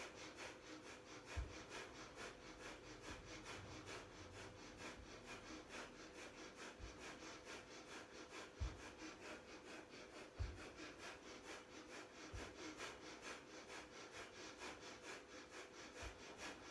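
Breath of fire: rapid, rhythmic forceful breaths through the nose, about two to three a second, faint and steady. A few dull low thumps stand out, one near the start and two around the middle.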